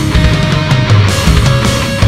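Loud rock music with a steady beat and a pulsing bass line.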